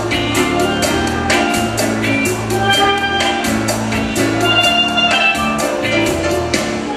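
Steel pan played with mallets, picking out a melody over an accompaniment of drums with a steady beat and a bass line.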